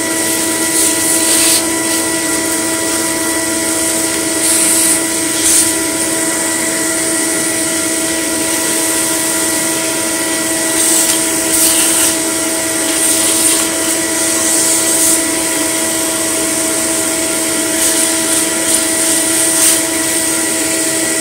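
Vacuum cleaner running with a steady motor whine as its hose and crevice tool suck fluff and dust out of a Dyson cleaner head's soleplate, with uneven hissing rushes of air each time the nozzle is pressed against the plastic or comes clear of it.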